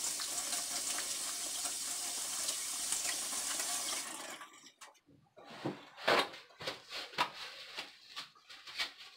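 Kitchen tap running into a sink as hands are washed, a steady rush of water that cuts off about four seconds in. A few soft knocks and rubs follow.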